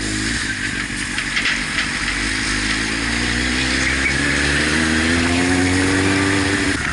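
Vehicle engine running under steady acceleration, its pitch rising slowly over the last four seconds, over a steady rush of wind and road noise.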